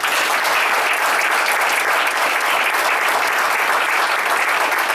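Audience in a council chamber applauding steadily. It breaks out suddenly and keeps a constant level throughout.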